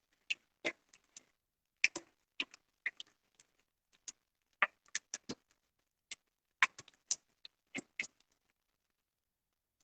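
Hands kneading a soft flour dough with butter worked in, giving irregular short slaps and squishes that stop about eight seconds in.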